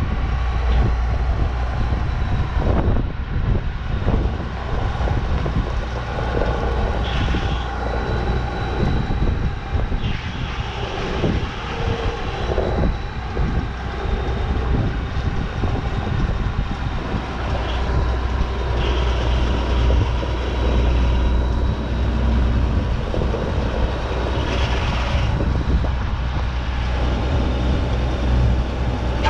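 A large engine running steadily, with a deep low hum and a thin steady whine, and short hissing surges every few seconds.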